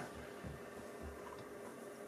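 Quiet room tone with a faint low hum and a few faint low thumps.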